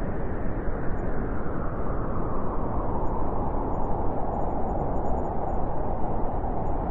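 Steady rushing outdoor noise with no clear single event, its weight in the low and middle range.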